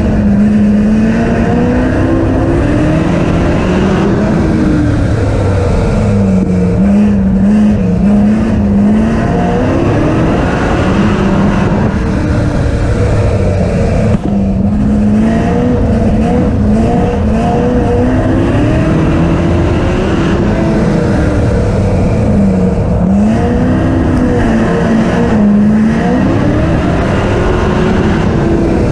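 Speedway stock cars racing on a dirt oval: loud engines whose pitch rises and falls over a few seconds at a time as the drivers get on and off the throttle.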